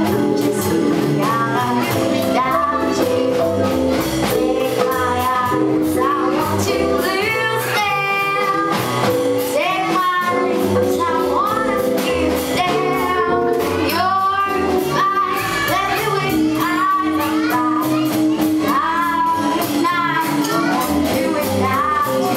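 Live jazz combo playing: a woman singing into a microphone over upright double bass, vibraphone, drum kit and electric guitar, with a steady beat on the drums.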